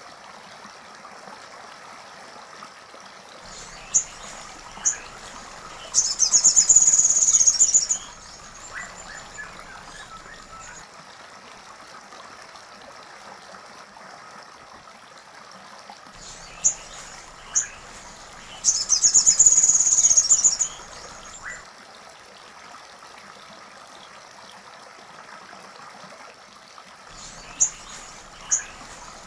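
Woodpecker calls used as a bird-song training recording: a loud, high, rapid chattering trill of about two seconds, heard twice about 13 seconds apart. Each trill comes after a couple of short sharp clicks, over a faint steady background of small chirps and insects.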